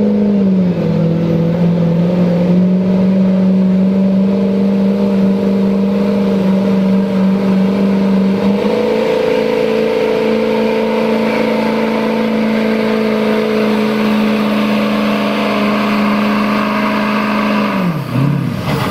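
Ford Super Duty pickup's Power Stroke V8 diesel held at high revs under full load while dragging a pulling sled. Its note stays steady, steps up slightly about halfway through, then falls sharply near the end as the pull finishes.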